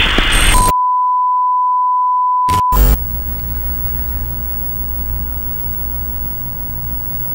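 A burst of TV static, then a steady single-pitch test-tone beep for about two seconds that ends in a crackle of static. After that comes a low, steady hum with faint hiss.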